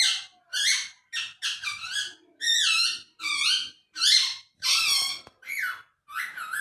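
Pet parrot squawking in a quick run of short, harsh calls, about two a second.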